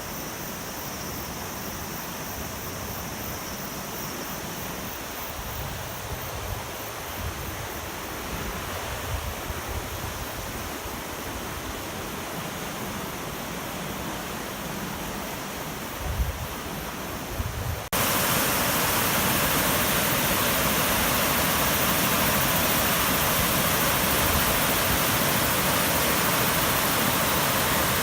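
Rushing water of a river swollen into a torrent by typhoon downpours, with wind gusting on the microphone in the first part. About two-thirds of the way in, the sound cuts abruptly to a louder, steadier rush of water.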